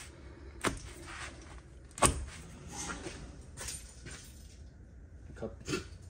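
Work-handling noises: a few sharp knocks and clicks with some rustling, the loudest knock about two seconds in.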